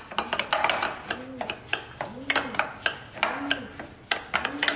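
Metal spoon stirring a crumbly semolina-and-curd mix in a glass bowl: scraping and clinking against the glass in regular strokes about once a second, each stroke carrying a low tone that rises and falls.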